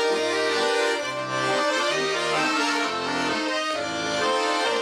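Russian garmon (button accordion) playing an instrumental phrase on its own: a melody over bass notes that change every half second or so.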